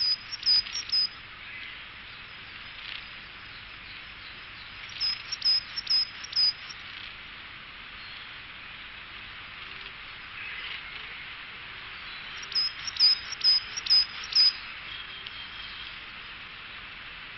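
A wild songbird singing phrases of five to seven short, high, clipped notes, three phrases about six seconds apart, over a steady background hiss.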